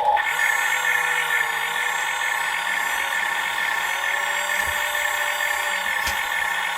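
Remote-control toy construction vehicle running: a steady, high-pitched whine from its small electric motor and gearbox, with a single click about six seconds in.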